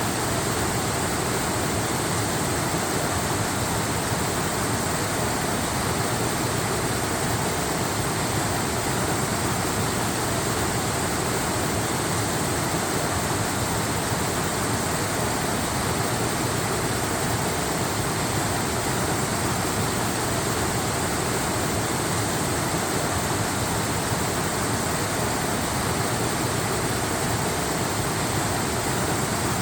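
Waterfall: a steady, unbroken rush of falling water, even across low and high pitches, with no changes or separate splashes.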